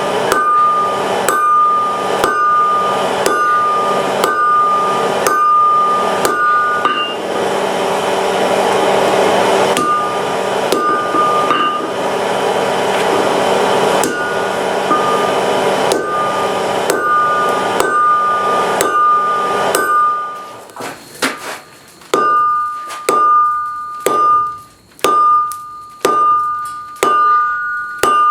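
Blacksmith's hammer striking steel on the anvil, a little under two blows a second, each with a bright anvil ring. In the middle the hammering stops for several seconds under a steady rushing noise, then resumes.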